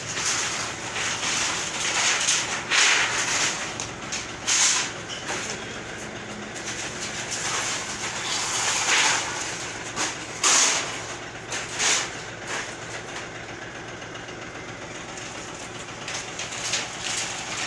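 Scrap corrugated galvanized iron roofing sheets being thrown and stacked in a truck's metal cargo box: a steady clatter and scrape of sheet metal, with several louder crashes in the first twelve seconds, then a quieter, more even rattle.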